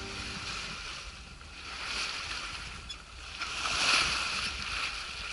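Sea water rushing and splashing along the hull of a sailing yacht under way, swelling twice, about two and four seconds in.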